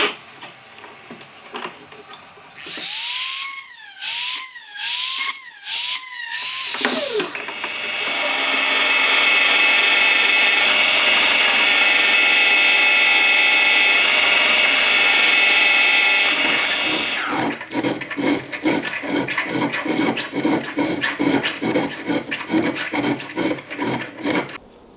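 A small power tool's motor whines up and down in a quick run of short surges. Then a drill press runs steadily while drilling brass for a sword guard. After that comes rhythmic hand filing in the brass, about two to three strokes a second.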